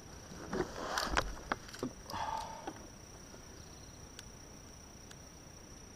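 Clicks, knocks and rustling as a small hampala barb is handled and unhooked at the side of a plastic kayak, over the first three seconds, then quiet. A steady high insect whine runs underneath.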